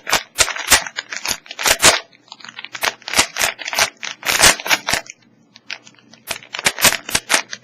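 Plastic Rubik's Cube being turned quickly by hand: rapid, irregular clicking and clacking of the layers, with a pause of about a second past the middle.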